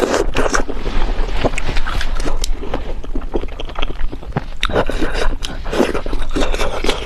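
Close-miked eating of spicy food: chewing, with many quick crunchy mouth clicks throughout.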